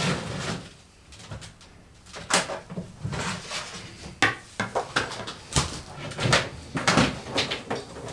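Handling noise of cables and equipment behind a TV stand: an irregular run of clicks, knocks and rustles as a network cable is worked loose and reconnected.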